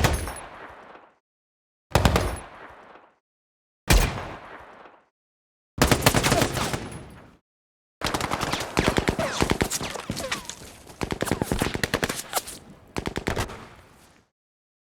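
Film sound-effect automatic rifle fire: four short bursts about two seconds apart, each trailing off in an echo, then a longer stretch of continuous rapid fire with brief pauses that stops about a second before the end.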